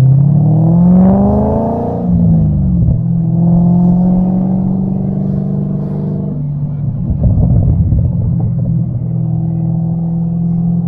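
C6 Corvette V8 through LG Motorsports headers and exhaust. The revs climb for about two seconds, then fall away and settle into a steady drone. A rougher rumble breaks in for a second or two past the middle before the steady note returns.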